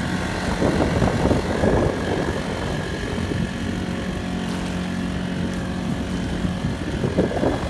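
Honda GX35 single-cylinder four-stroke outboard engine running steadily under way, with irregular bursts of water noise as the small pontoon boat crosses chop.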